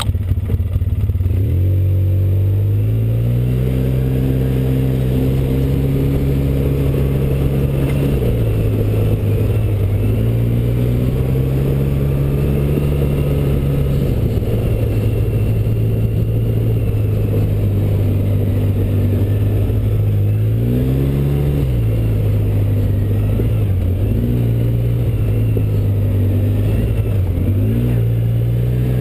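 Quad (ATV) engine heard from on board while riding, rising in revs over the first few seconds and then running at a fairly steady pitch. A drop in revs comes around a quarter of the way in, a brief swell about two-thirds in, and two short dips near the end.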